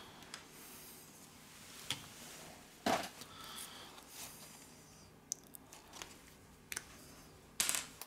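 Light handling noises on a workbench: scattered clicks, taps and rubbing as a tube of adhesive is picked up and uncapped, with sharper knocks about three seconds in and again near the end.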